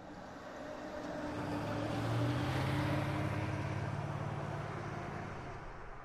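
Radio-controlled monster truck driving past over gravel: a steady motor hum with a noisy wash of tyres on loose stones swells, peaks two to three seconds in, then fades away.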